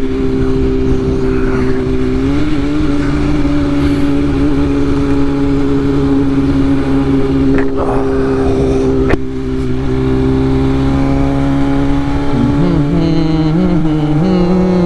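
BMW S1000RR inline-four sport bike engine running at a steady cruise under wind rush. A sharp click about nine seconds in is followed by a short dip in engine sound. Near the end the engine pitch wobbles a little.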